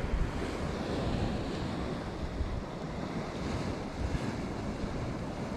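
Sea waves washing steadily, with wind buffeting the microphone in uneven gusts.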